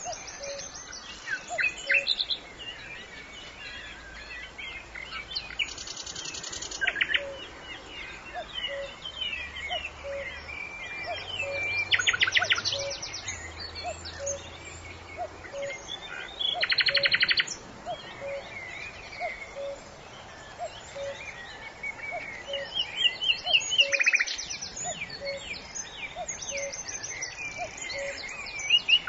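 Forest ambience full of songbirds chirping and whistling. A loud, rapid trill recurs about every five to six seconds, and a soft low note repeats at an even pace underneath.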